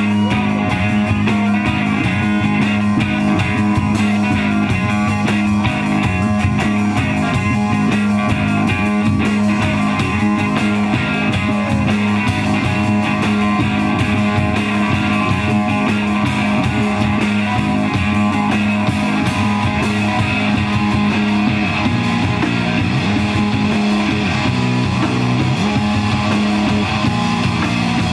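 Instrumental psychedelic rock played live by a trio on a hollow-body electric guitar, electric bass and drum kit. A low note is held steadily for most of it, and the low part starts sliding and moving about two-thirds of the way through.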